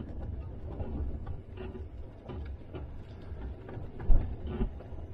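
Jeep rolling slowly along a gravel lane: a low rumble with faint scattered clicks and one louder bump about four seconds in.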